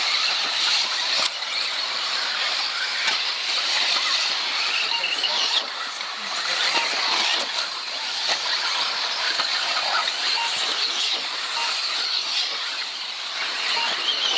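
Radio-controlled off-road cars racing round a track, their motors giving a continuous high whine with pitch glides as they speed up and slow down.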